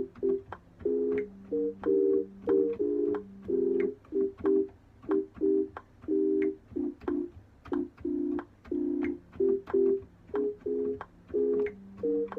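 Organ-like keyboard chords played as short, choppy stabs in a hip-hop beat, with a lower held bass note under some of them and light ticks between the chords.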